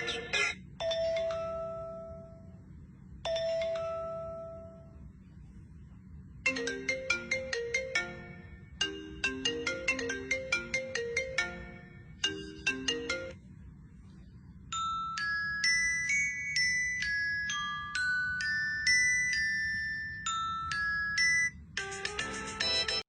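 Ringtone-like melodies of clear, pure notes. First come two long held tones, then quick rhythmic runs of short plucked notes, and then a high melody that steps from note to note.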